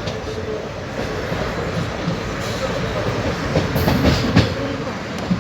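Onboard an ICF passenger coach running along the track: a steady rolling rumble with the wheels clacking over rail joints, two sharper clacks close together near the end.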